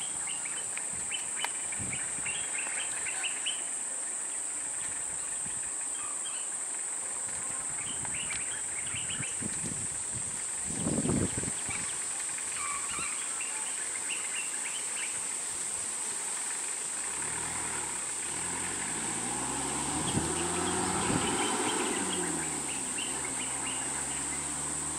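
Steady high-pitched insect drone with scattered bird chirps, and a short low rumble near the middle. About two-thirds of the way in, a vehicle engine comes in and grows, its pitch rising and then falling.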